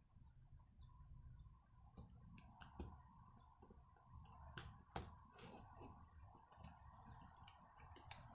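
Faint, irregular clicks and taps of a small screwdriver and plastic parts as wires and the throttle cable are tucked into the open plastic housing of a brush cutter's throttle handle, a few sharper clicks in the middle.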